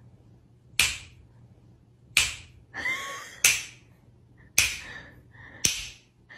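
Fingers snapping five times, a little over a second apart, each snap sharp with a short echo of the room.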